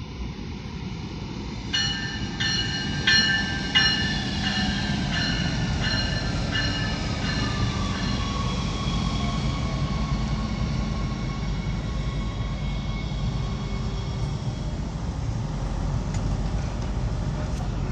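Stadler GTW diesel light rail train arriving and slowing to a stop, its diesel engine and wheels giving a steady low rumble. For the first few seconds a bell rings about eight times, roughly one and a half strikes a second, and then a faint whine falls in pitch as the train slows.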